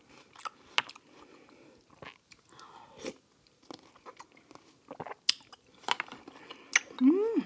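A person chewing and crunching a mouthful of watermelon hwachae, fruit punch with frozen fruit, with scattered sharp crunches. Near the end comes a short hummed "mm".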